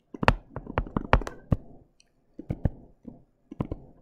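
Stylus tip clicking and tapping against a tablet screen during handwriting, in a quick, irregular series of sharp clicks with short pauses between strokes.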